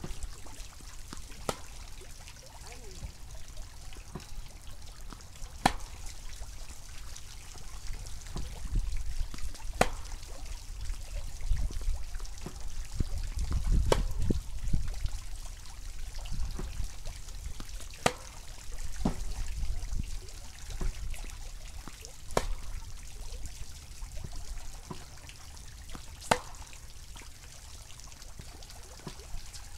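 Tennis racket striking the ball on groundstrokes: seven sharp pops, about one every four seconds, with fainter ball bounces between. A steady low rumble of wind on the microphone runs underneath.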